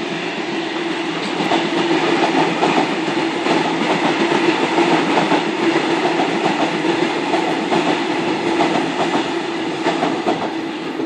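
Sydney Trains Waratah double-deck electric train passing through the station, a steady loud rumble of wheels on rail with a constant low hum and a quick run of clicks over the rail joints. It grows louder about a second and a half in and eases a little near the end.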